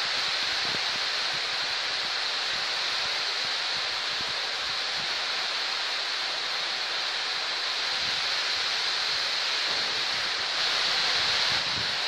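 Heavy rain falling steadily on trees and grass, a dense even hiss that swells a little about ten seconds in and eases back just before the end.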